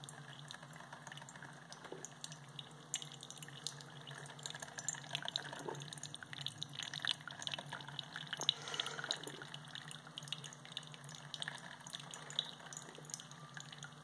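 Marvel Spider-Man single-serve drip coffee maker brewing: hot coffee dripping and trickling into a ceramic mug, with gurgling from the machine as it pushes water through, over a faint steady low hum.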